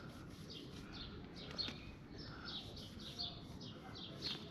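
Faint birdsong: small birds chirping, short high chirps a few times a second.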